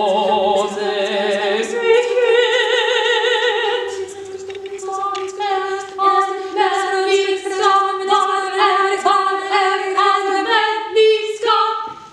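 A vocal ensemble of women singing a cappella: a low note is held steady under higher voices singing with wide vibrato. From about five seconds in, the upper voices switch to quick, repeated short notes over the held note. The singing stops abruptly near the end.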